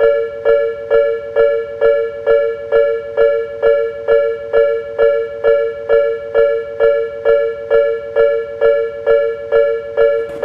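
Japanese railway level-crossing warning bell ringing the steady "kan-kan" alarm, about three strikes a second, each strike a bright two-note ding.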